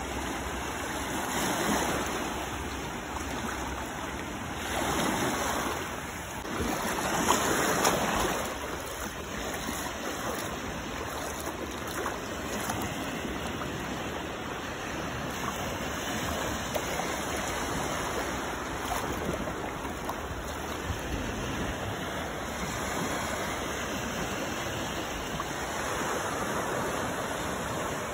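Small waves washing in over the shallows of a sandy beach, a steady wash of surf with several louder surges in the first ten seconds.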